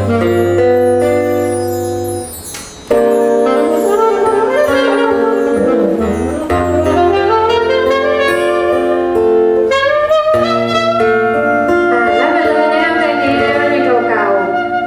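A band playing a slow song: a gliding lead melody over sustained keyboard chords and bass notes. The music drops away briefly and comes back abruptly a few seconds in.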